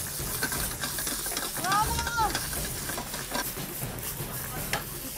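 Octopus sizzling in a hot pan: a steady frying hiss, with scattered knocks of cooking utensils.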